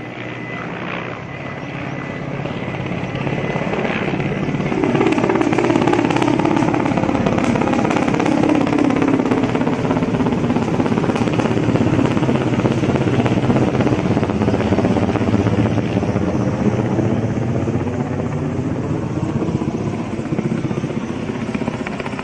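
Helicopter rotor chopping with a fast, even pulse, growing louder over the first several seconds, holding loud, then easing off a little near the end.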